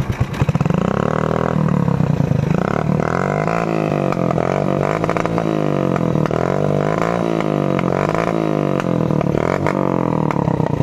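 Motorcycle engine running, heard with the exhaust pipe close to the microphone: a loud, steady drone whose pitch wavers up and down about once a second.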